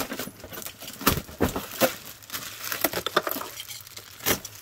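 Plastic packaging wrap crinkling and rustling as a hand rummages through it inside an opened cardboard box, with irregular sharp crackles.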